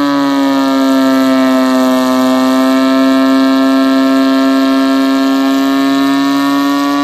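Twin-supercharged 12A two-rotor rotary engine in a Leyland pulling tractor, running under load at light throttle while pulling the sled. It holds a steady, strongly pitched note that sags slightly in pitch over the first two seconds and rises back near the end.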